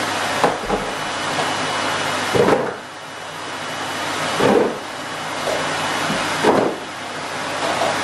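Plastic Play-Doh tubs knocking into a cardboard box, a hollow knock about every two seconds, over a steady background hiss.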